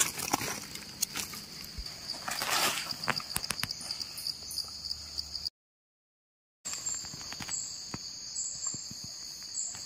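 Steady high-pitched drone of forest insects, with scattered light crackles of dry leaf litter underfoot. The sound drops out completely for about a second midway, then the drone resumes.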